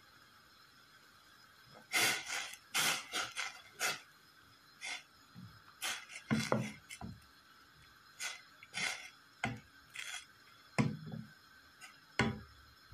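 Wooden spoon stirring herbs in water in a metal saucepan: irregular scrapes and knocks against the pot, starting about two seconds in.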